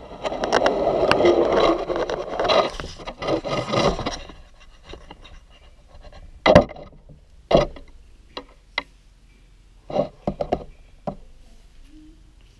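Siamese cat rubbing and pushing against the camera, its fur brushing over the microphone in a loud scratchy rustle for about four seconds. This is followed by a few sharp separate knocks as it bumps the camera.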